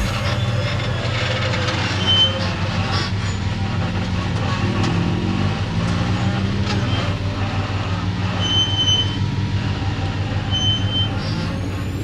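Rock-crawling buggy engine running at low speed, its pitch rising and falling with the throttle as it works over rock ledges. Short high squeaks come through a few times.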